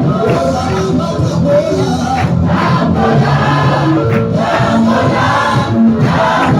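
Congregation and choir singing a gospel song with musical accompaniment.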